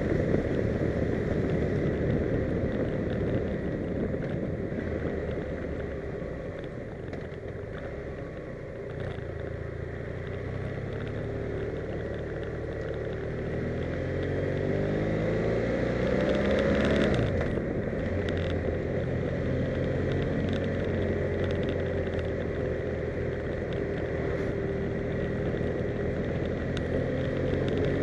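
A vehicle's engine at road speed. About halfway through its pitch climbs steadily for several seconds as it accelerates, then falls away sharply, and afterwards it runs at a steady pitch. Wind rumbles on the microphone throughout.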